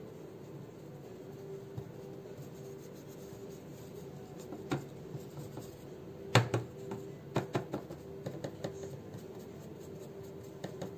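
Small paintbrush scratching and dabbing on the carved relief of a cast frame, with scattered light taps, the loudest about six seconds in, over a faint steady hum.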